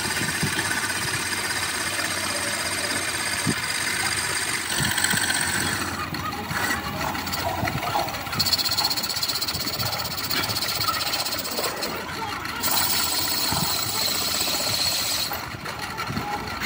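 Metal lathe running with its cutting tool turning a small metal part in the chuck. The machine's steady noise carries a high whine through much of the second half, and the sound changes a few times along the way.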